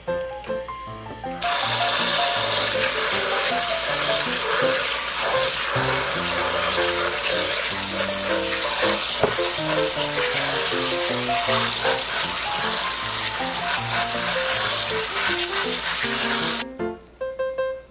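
Cold tap water running steadily onto cooked noodles in a plastic colander while they are rubbed by hand to rinse off the starch. The water starts about a second and a half in and cuts off sharply about a second before the end.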